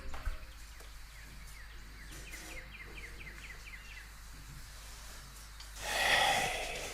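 A woman's loud snore near the end, a single rasping breath of under a second, over faint bird chirps in the background.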